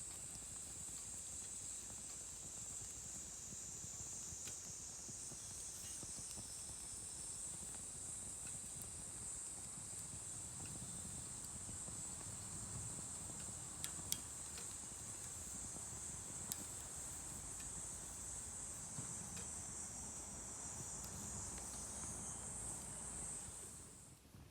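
Insects calling in a steady, high, unbroken buzz that stops suddenly near the end, with two or three sharp pops from the burning campfire about halfway through.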